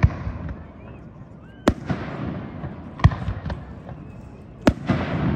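Aerial firework shells bursting at a distance across a river: four sharp bangs about a second and a half apart, each trailing off into a rolling echo.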